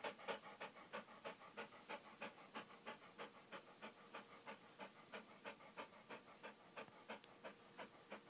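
Dog panting quickly and evenly, about four faint breaths a second.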